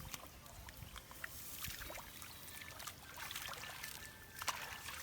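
Shallow muddy water trickling and splashing, with scattered small clicks and drips and a sharper splash-tick about four and a half seconds in.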